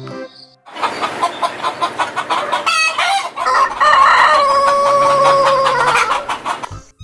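Chickens clucking in quick, dense calls, then a rooster's long crow from about three and a half seconds in, held steady and sagging in pitch as it ends near six seconds.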